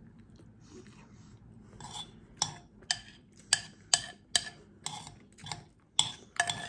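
A metal spoon clinking and scraping against a bowl while scooping rice and fish: a run of about ten sharp clicks, roughly two a second, starting about two seconds in.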